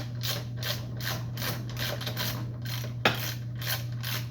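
Hand ratchet tool being worked back and forth on the chop saw's fasteners, giving an even run of ratcheting strokes about three a second, with one sharper click about three seconds in. A steady low hum runs underneath.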